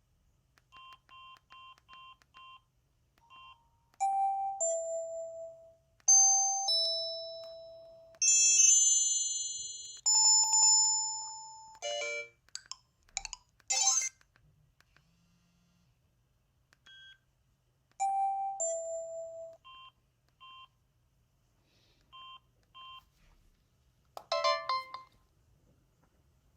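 Samsung SGH-C260 phone playing a synthesized Yamaha SMAF ringtone melody. Short electronic beeps come first, then louder bell-like notes that ring and fade. A few noisy sweeping bursts follow, then more beeps.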